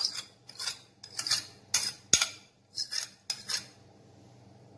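Steel spoon scraping and clinking against a ceramic bowl and a glass bowl while yogurt is scooped onto chicken: about seven short scrapes and clicks, the sharpest just past the middle.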